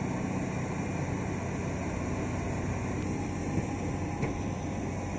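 Steady low hum of an Airbus A320 cabin's ventilation. A faint high whine comes in about three seconds in, with a couple of small clicks.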